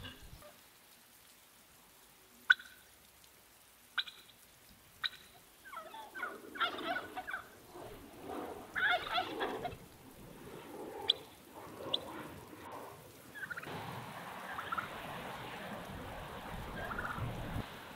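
Domestic turkey gobbling, several calls in a row in the middle, after a few sharp ticks. From about two-thirds of the way in there is a steady hiss of rain.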